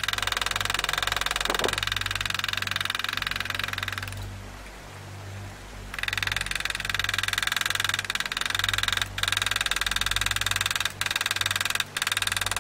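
Rapid, steady light hammer taps driving a hand engraving graver through steel plate, as a chip is cut. The tapping stops for about two seconds around four seconds in, and breaks off briefly a few times near the end.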